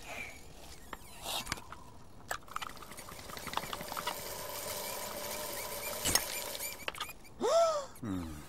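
Squeaking and clicking of a pedal-powered generator bike being pedalled, with a faint steady whine through the middle. A short tone that rises and falls comes about a second before the end, as the pedalling gives out.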